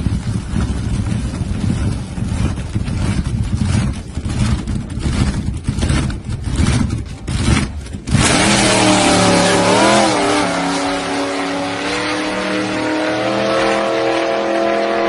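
Supercharged drag car with a Chrysler PT Cruiser body running unevenly with sharp pops on the start line, then launching about eight seconds in at full throttle. The engine's pitch rises, wavers once, then climbs steadily as the car pulls away down the strip.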